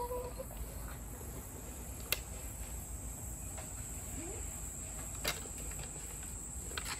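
Steady high-pitched insect chirring with two sharp clicks, about two and five seconds in, from a fabric filter bag being worked onto its metal filter frame.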